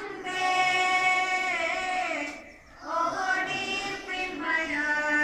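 Schoolchildren singing together, slow and chant-like, with long held notes and a short break about two and a half seconds in.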